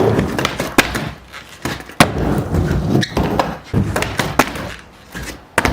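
Skateboard riding a mini ramp: the wheels rumble as they roll, broken by several sharp clacks and thuds of the board striking the ramp.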